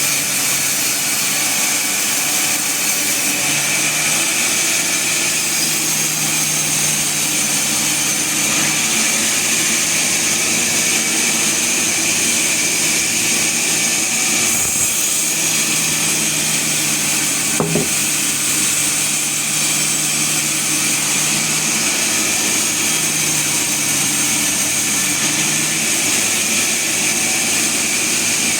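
Sawmill machinery running steadily: a loud, even hiss with steady high tones and a low hum that fades in and out, and one brief click partway through.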